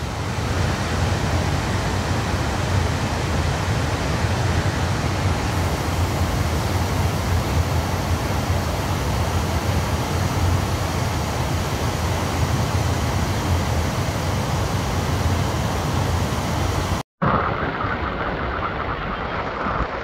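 Steady rush of a swollen river pouring over an overflowing dam and through rocky rapids, with a deep rumble underneath. About 17 seconds in it cuts off abruptly and gives way to the rush of floodwater running down a flooded street.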